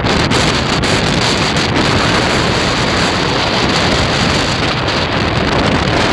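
Sandstorm wind blowing hard over the microphone: a loud, steady rushing noise.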